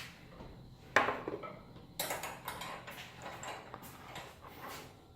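Handling noise: sharp clicks and clinks, the loudest about a second in and another at two seconds, followed by smaller taps.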